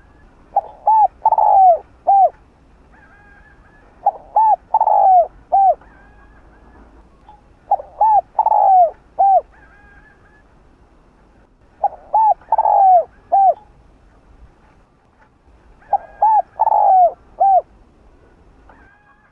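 Spotted dove (Streptopelia chinensis) cooing its song: five phrases about four seconds apart, each a couple of short coos, one longer falling coo and a final short coo.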